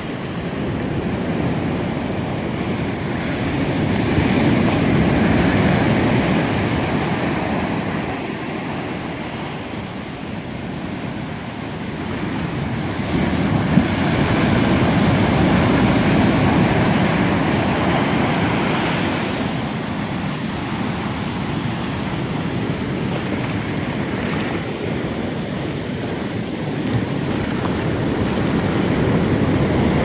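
Ocean surf: waves breaking and foam washing up the sand in a continuous rush that swells and eases, loudest a few seconds in and again around the middle.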